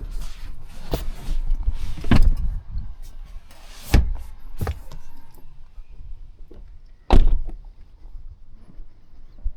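Doors and panels of an XPeng G9 SUV being opened and shut: a string of clicks and thuds, one with a short rising rush of air about four seconds in, and the loudest, a heavy door shutting, about seven seconds in.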